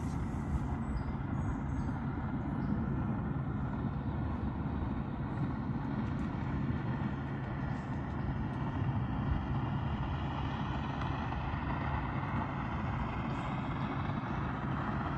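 Boat engine running steadily as the boat motors away from the ramp, with a slight change in pitch near the end.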